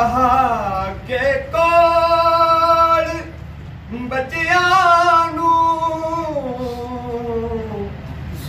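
A man singing a naat unaccompanied, holding long drawn-out notes with wavering ornaments. He pauses briefly about halfway through, then sings a second long phrase that slides down in pitch.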